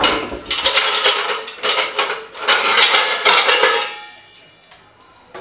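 Dishes and cutlery clattering as a plate is taken out of a dish rack: a dense run of knocks and rattles that stops about four seconds in.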